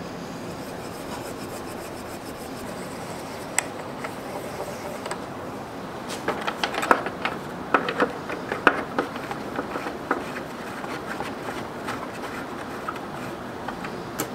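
Hand-worked parts of a restored Atlas bench lathe clicking and knocking. One sharp click comes early, then a run of irregular clicks and knocks in the middle, over a steady hiss.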